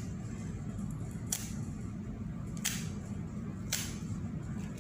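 Thin plastic sheet being pulled apart into strands, giving three brief crisp swishes about a second apart over a steady low hum.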